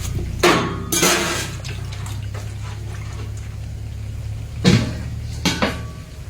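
Kitchen work with water: splashing and dripping with pots or bowls clattering, a few sharp knocks about half a second, one second and nearly five seconds in, over a steady low hum.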